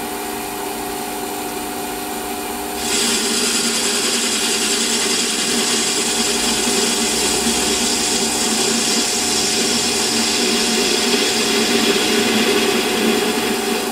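Metal lathe running with a steady hum. About three seconds in, the cutting tool bites into the face of the spinning cylinder end cap, and a steady cutting hiss carries on as the facing cut goes in.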